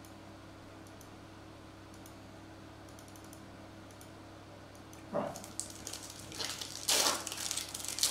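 Faint scattered clicks, then about five seconds in a foil trading-card pack of 2020 Donruss Optic football is picked up and torn open, its wrapper crinkling in loud bursts.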